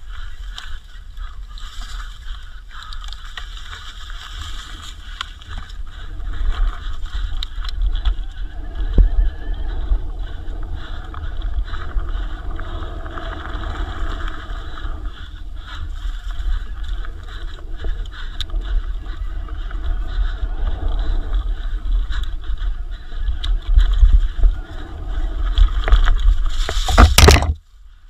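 Wind buffeting the helmet or action-camera microphone over the rumble and rattle of an e-mountain bike ridden fast down a dirt enduro trail. A loud clatter comes near the end, then the sound drops away briefly.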